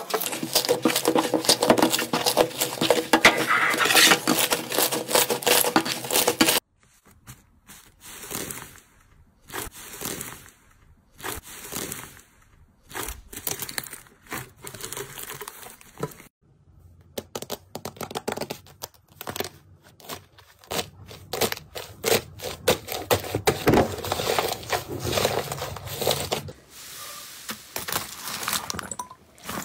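Hands squeezing, stretching and tearing fluffy cloud slime: dense crackling and popping, with soft tearing as the slime pulls apart. The sound cuts off abruptly a few times as one clip gives way to the next, and is sparser and quieter in the middle part.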